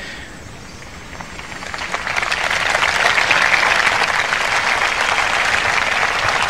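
Large crowd applauding, swelling from faint to full over about a second, starting roughly a second and a half in, then holding steady.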